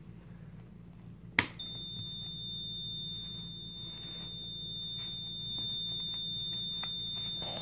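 A click as the toggle switch is flipped, then a multimeter's continuity beeper sounds one steady high tone. The tone shows that the freshly cleaned switch contacts are conducting.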